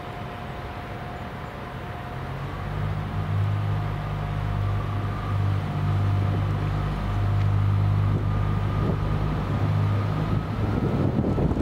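Diesel engine of the SA133-series railcar revving up as the train pulls away, a low steady drone that swells about two and a half seconds in, with a faint whine above it. A rougher rumble builds near the end as the railcar gets moving.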